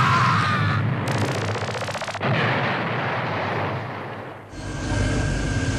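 Cartoon explosion and rumbling-destruction sound effects, with a shrill squeal at the start and a rapid crackling stretch in the middle. About four and a half seconds in it cuts to a steady low mechanical hum.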